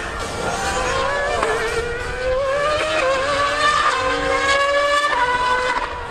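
A Mercedes Formula One car and a Yamaha R1M superbike racing flat out. Their engines rise steadily in pitch, and the pitch steps down at upshifts about three and five seconds in.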